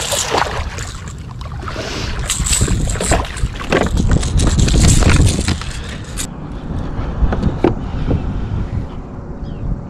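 Wind rumbling on the microphone, with splashing and sharp knocks as a hooked striped bass thrashes at the surface beside a kayak and is lifted aboard; the splashing and knocking stop about six seconds in.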